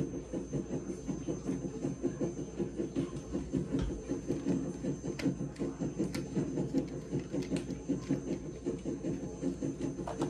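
Model railway locomotive running, a steady rapid mechanical pulsing with a few light clicks.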